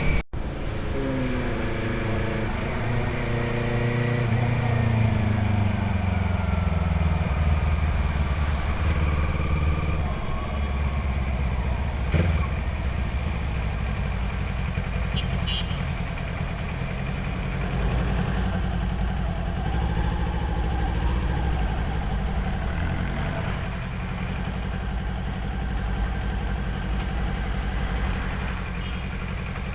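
Motorcycle engine and exhaust heard from the rider's seat, the revs dropping over the first few seconds as the bike slows, then a low steady note near idle for most of the time, with one sharp click about twelve seconds in. Near the end the engine revs up again.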